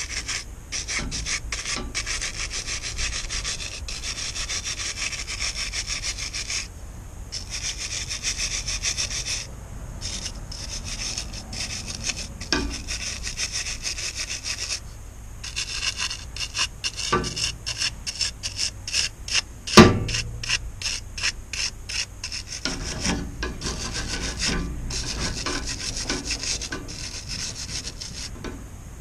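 Rapid, repeated scraping of a knife blade along a dark ribbed strip taken from a window, with short pauses, later turning to scrubbing with a small brass wire brush. One sharp knock sounds about two-thirds of the way through, the loudest moment.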